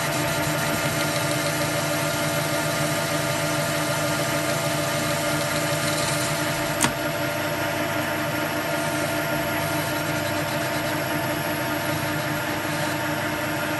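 Metal lathe running steadily with a standard Hillman Imp crankshaft turning in the chuck, as a carbide tool cuts the rear scroll down to a 3-inch seal diameter. The steady hum of the motor and gearing carries throughout, with one sharp click about seven seconds in.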